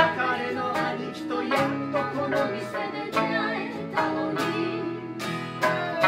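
Acoustic folk trio playing live: steadily strummed acoustic guitar, plucked sanshin (Okinawan three-string lute) and accordion chords, with singing over them.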